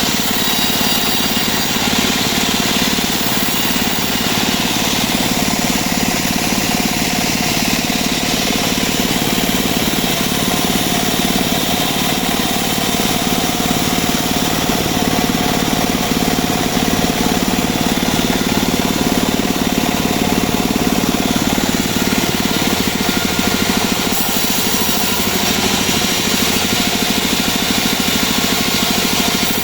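Engine-driven homemade portable band sawmill running steadily at a constant, unchanging speed.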